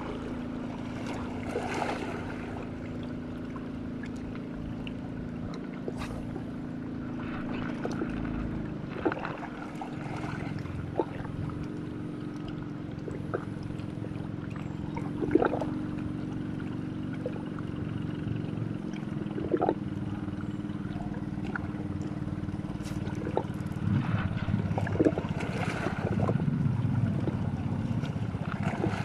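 A motorboat engine drones steadily, its pitch stepping a few times, with water washing and scattered small clicks over it; the water noise grows near the end.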